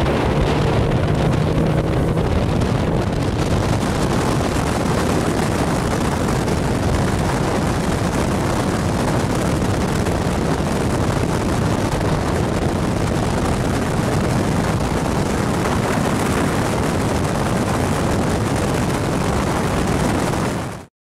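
Boat engine running flat out at wide open throttle, near 6,000 RPM, on a top-speed test to check it reaches the manufacturer's spec of about 5,800 RPM. Heavy wind noise on the microphone is mixed in. The sound is steady and cuts off abruptly near the end.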